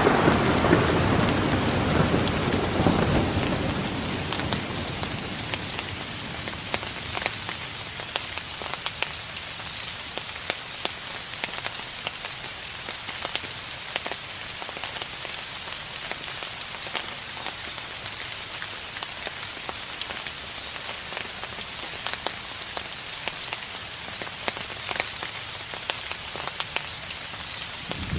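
Steady rain falling, with many individual drops ticking close by, as a distant thunder rumble dies away over the first few seconds.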